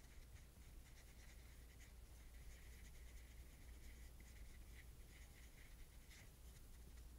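Faint scratching and rubbing of a paintbrush worked back and forth over textured paper in short irregular strokes, over a low steady hum.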